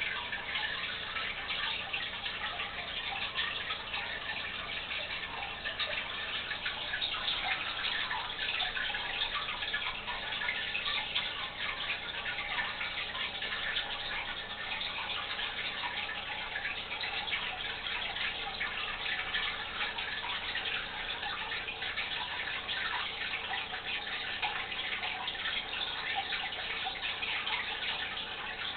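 Aquarium water trickling and splashing steadily, a continuous crackly running-water sound with no pauses.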